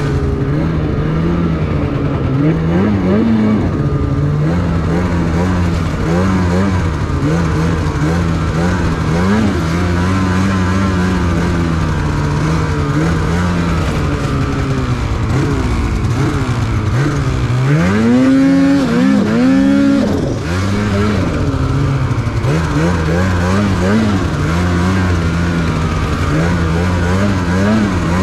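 Snowmobile engine running under way, its pitch rising and falling with the throttle, with a hard rev about eighteen seconds in.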